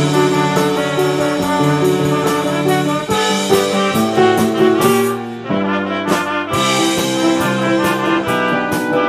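Trumpets playing a sung melody in harmony over piano and a drum kit played with sticks, with a short let-up about five and a half seconds in.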